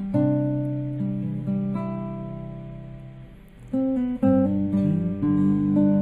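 Two acoustic guitars playing chords. A strummed chord rings and fades for about three and a half seconds, then strumming picks up again with new chords.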